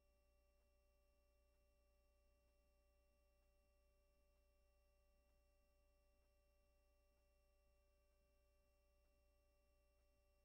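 Near silence: only a faint, steady electronic hum with a few fixed high tones, and no sound from the game.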